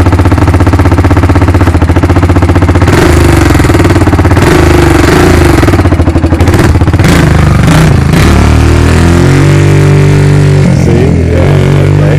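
Honda TRX300EX quad's single-cylinder four-stroke engine idling, then revving up about three seconds in as the quad pulls away. The engine note rises and falls, then holds steady for a couple of seconds before changing again.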